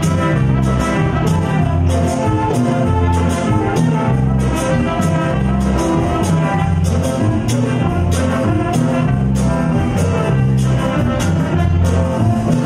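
A live Latin band playing: saxophones and electric guitar with keyboard over a steady percussion beat.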